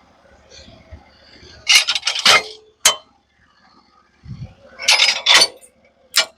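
Handling noises at a portable band sawmill between cuts: two bursts of scraping and clattering a few seconds apart, each ending in a single sharp knock.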